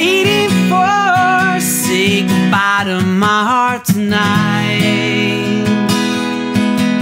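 Acoustic guitar strummed steadily while a man sings a drawn-out vocal line over it for the first half. After a brief dip near the middle, the guitar carries on with little or no voice.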